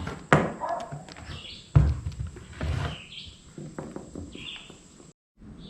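Scattered knocks and clicks of hands working on a pressure washer, with one heavier thump a little under two seconds in, while birds chirp in the background.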